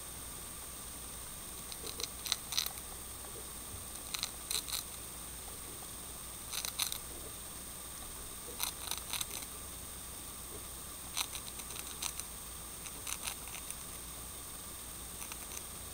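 Dwarf hamster nibbling a dry cracker: small crisp crunching clicks in short bursts every one to two seconds, about eight bursts.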